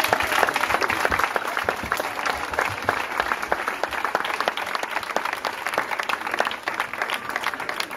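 Crowd applauding, many hands clapping at once, gradually dying down toward the end.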